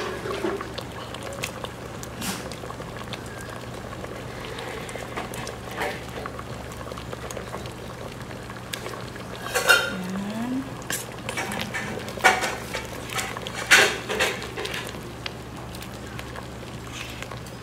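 Pot of munggo soup with chicken, squash and spinach bubbling at a steady boil, under a low steady hum. A few sharp metal clinks come in the middle, the loudest sounds.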